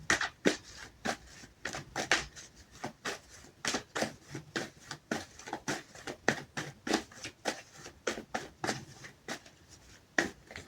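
Tarot cards being shuffled and handled by hand: a long run of crisp card snaps and flicks, about two or three a second.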